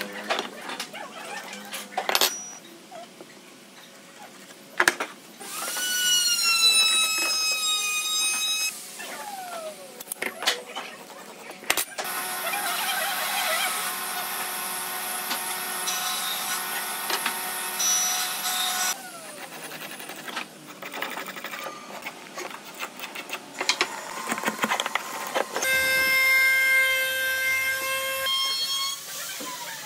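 Workshop power tools, among them a drill press, running in three separate bursts. The first starts with a rising whine, the middle one is a steady noisy run, and the last is a steady motor hum. Scattered knocks and taps of wood and tools come between the bursts.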